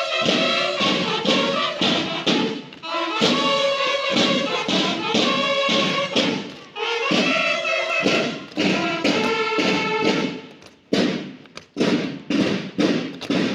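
School banda de guerra, a drum and bugle corps, playing a march: bugles sound held notes over a steady snare-drum beat. Near the end the bugles stop and the drums carry on alone with an even beat.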